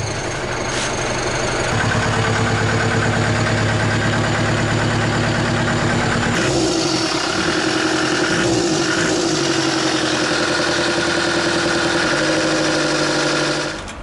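A vehicle engine idling steadily; its tone shifts about six seconds in and it drops away just before the end.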